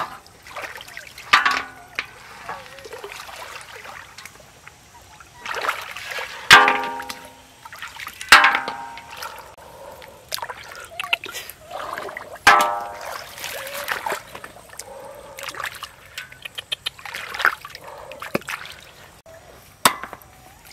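Hands splashing and sloshing in shallow water while feeling for snails, with several sharp clanks that ring briefly, as snails land in a metal basin.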